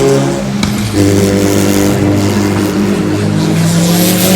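Car engine running loudly under load, its pitch stepping up about a second in and shifting again past three seconds.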